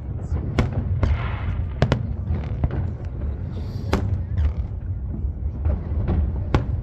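Aerial fireworks going off: a string of sharp bangs at uneven intervals, a few of them close together, over a steady low rumble.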